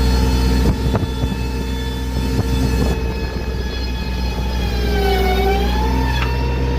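Sawmill engine running steadily while a spruce log is sawn, with a few knocks in the first couple of seconds. Its pitch dips briefly about five seconds in and then recovers.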